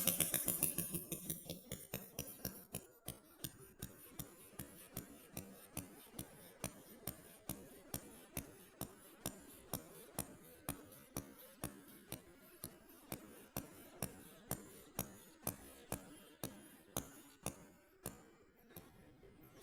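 Regular sharp clicks, about two a second. They space out and stop near the end.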